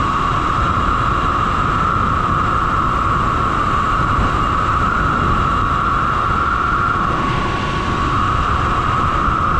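Steady wind and road noise while riding a Sur-Ron electric dirt bike: a constant hiss over a low rumble.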